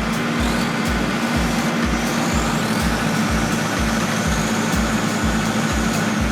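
A heavy machine's engine running steadily, under background music with a steady low beat of about two thumps a second.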